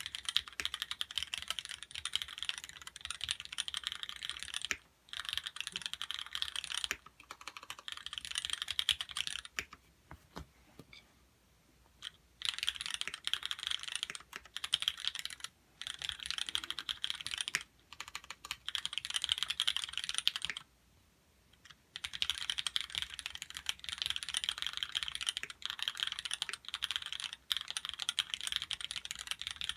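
Typing on a Duck TC-V3 custom mechanical keyboard with Cherry MX Black linear switches: rapid streams of key clacks in runs of several seconds, broken by short pauses.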